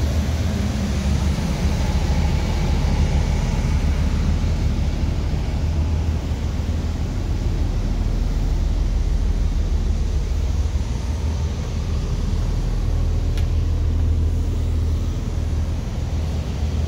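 Coach's diesel engine idling steadily, heard from inside the passenger cabin as a low, even hum, with a faint click about thirteen seconds in.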